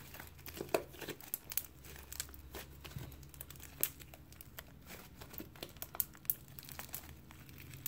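Fluffy slime made of glue, shaving cream and borax being squeezed and stretched by hand, giving irregular faint sticky crackles and pops.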